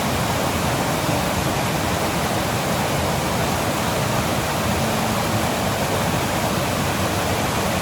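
Steady wind rushing and buffeting over the microphone, with a choppy low rumble underneath.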